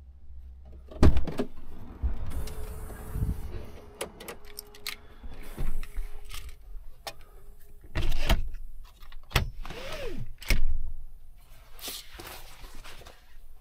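Clothing and gear being handled inside a truck cab: the rustle of a high-visibility vest, with scattered knocks and clicks. A faint steady hum runs for a few seconds early on.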